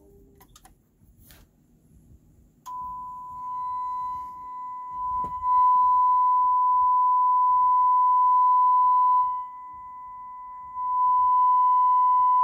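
A steady 1 kHz sine test tone, the bench test signal for a Denon PRA-200 preamplifier, starting about two and a half seconds in after a few faint clicks. It steps louder a few seconds later, drops back for about a second and a half near the end, then comes up again.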